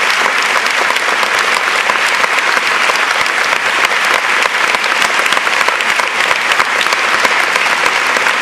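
Theatre audience applauding, many hands clapping in a dense, steady stream with no music.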